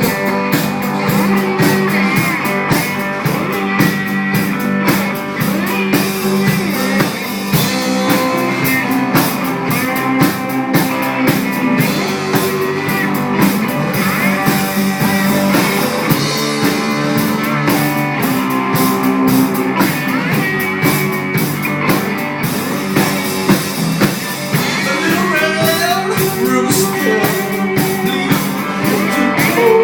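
A rock band playing the instrumental part of a blues-rock tune, with guitar and a drum kit keeping a steady beat and no vocals.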